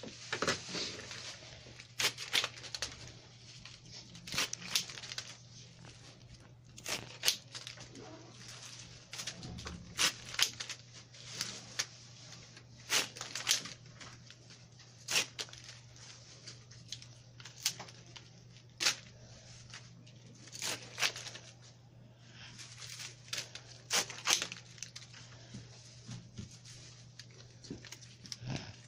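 Rose leaves being stripped and snapped off the stems by hand: irregular sharp tearing snaps and crackles, a few every second or two, over a faint steady hum.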